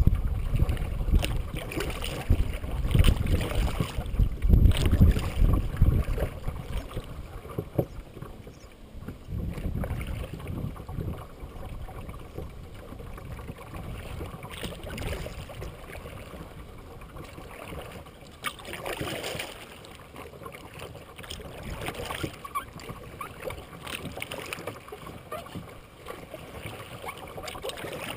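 A kayak being paddled through water thick with lily pads: paddle splashes and water swishing along the hull. A loud low rumble fills the first few seconds, then separate splashes come every few seconds.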